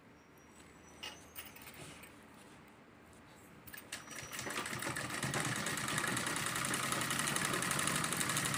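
Sewing machine stitching a seam: after a quiet start with a couple of faint clicks, the machine starts about four seconds in and speeds up to a fast, steady run.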